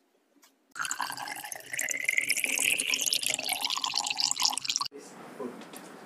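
Water being poured, splashing with a pitch that rises as it goes. It starts about a second in and stops suddenly about five seconds in, leaving a quieter steady background.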